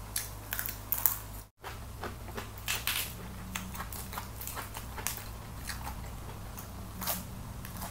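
Close-miked eating sounds: chewing, with short crisp crackles and rustles of a lettuce leaf being torn and folded in the fingers. The sound drops out for an instant about a second and a half in.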